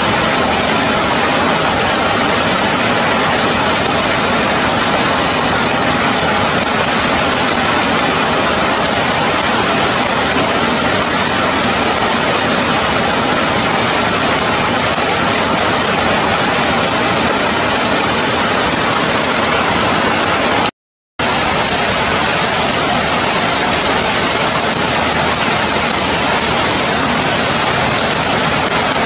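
Heavy rain falling steadily on forest leaves, a loud even hiss. It cuts out completely for a split second about two-thirds of the way through.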